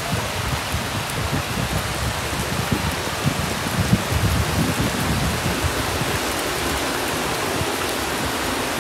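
Heavy rain pouring down, a steady hiss, with an uneven low rumble underneath for the first six seconds or so.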